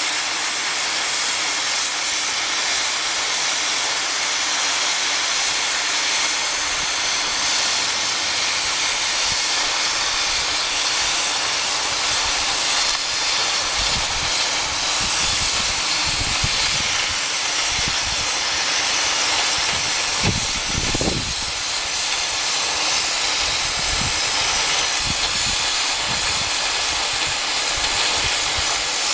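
Oxy-fuel cutting torch cutting through thick steel plate, a loud, steady hiss of the flame and cutting-oxygen jet, with irregular low thumps from about halfway through.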